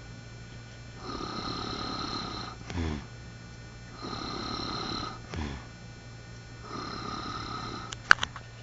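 A man snoring in a steady cycle: a long hissing breath with a whistling tone, then a short rattling snort, repeating about every two and a half seconds. Two sharp clicks come near the end, louder than the snoring.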